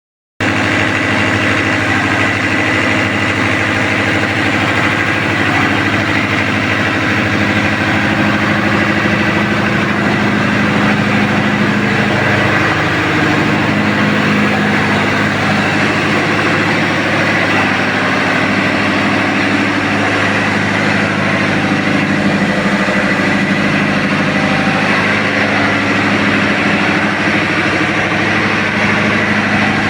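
A tugboat's main diesel engine running steadily at a constant speed.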